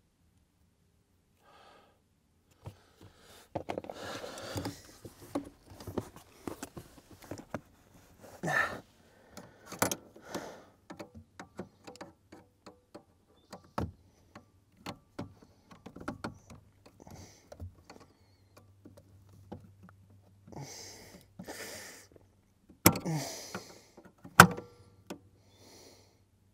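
Irregular metal clicks, knocks and scrapes from the clutch pedal assembly under the dash of a Ford Mustang GT350 as the old two-stage clutch spring assist is pried and prodded out by hand. Two sharp clacks near the end are the loudest.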